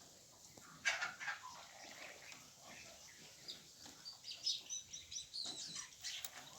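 Birds chirping with many short, high calls, led by a louder, sudden call about a second in.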